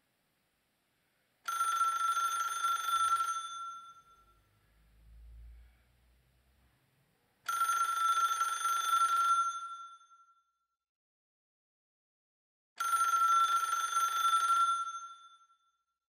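A telephone ringing three times, each ring about two seconds long with pauses of several seconds between them.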